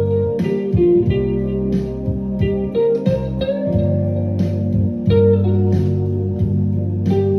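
Background music: guitar-led instrumental with bass and a steady beat.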